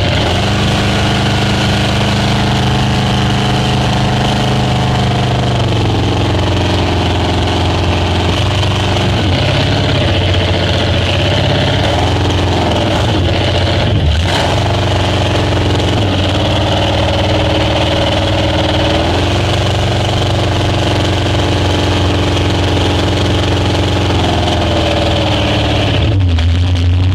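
Speedboat engine running under way, its pitch dipping and rising again several times as the throttle changes, over a steady rushing noise.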